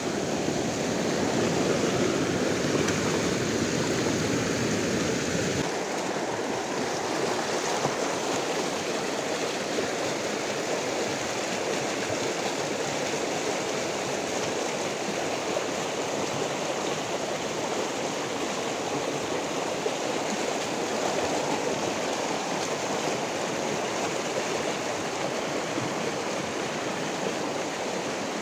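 Shallow rocky creek running over stones: a steady noise of flowing water that thins a little about six seconds in.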